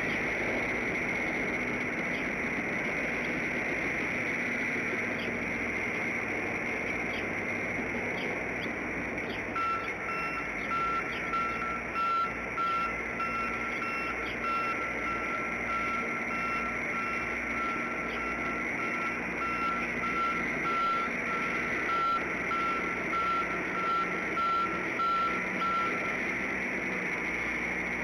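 Steady outdoor background hiss. About a third of the way in, a row of evenly repeated beeps at one steady pitch starts, and it stops shortly before the end.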